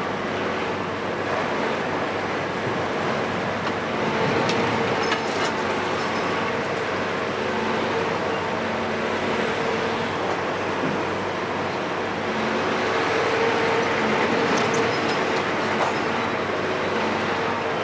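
Caterpillar 374F UHD demolition excavator working, its Cat C15 six-cylinder diesel and hydraulics giving a steady droning hum. A few sharp cracks come from concrete breaking in its pulverizer jaws, about four to five seconds in and again near the end.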